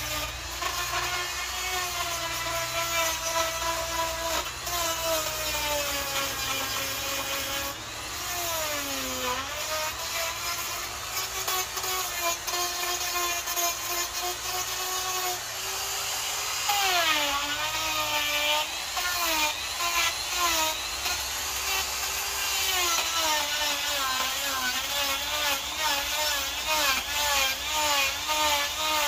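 Electric die grinder with a carving burr cutting into a wooden log: a steady motor whine with a rasping cut, the pitch sagging several times as the burr is pushed harder into the wood and recovering as the load eases.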